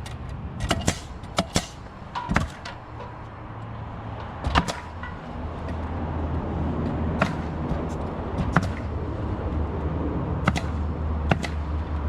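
Sharp knocks and taps from roofing work, coming at irregular intervals, over a steady low hum that slowly grows louder.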